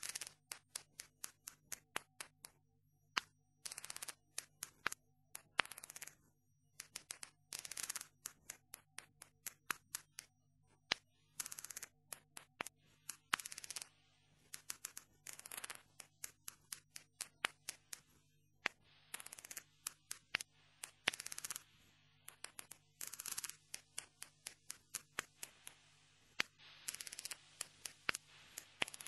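A rapid, irregular series of sharp clicks and short scratchy snips, some clustered and some half a second long, over a faint steady low hum.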